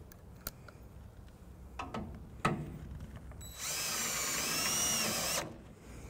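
Power drill driving a self-tapping screw, running for about two seconds in the second half with a high whine that wavers in pitch. A few light clicks and knocks come before it.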